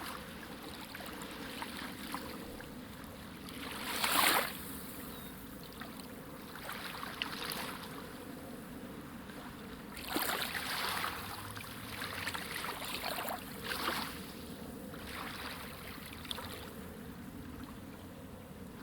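Small waves lapping and splashing at the water's edge on a beach: a steady wash with irregular splashes every second or few, the biggest about four seconds in and again about ten seconds in.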